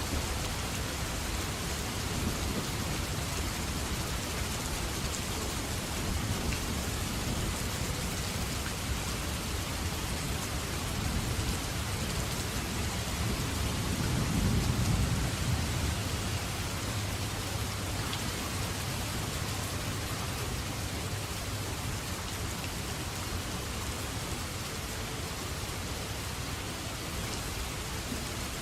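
Steady rain falling, with a low rumble of thunder that swells and fades about halfway through.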